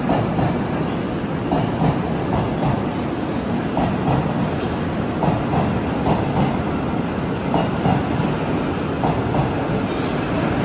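Moscow Metro train running past along the station platform: a loud, steady rumble of wheels on rail with repeated clacks as the wheels cross rail joints.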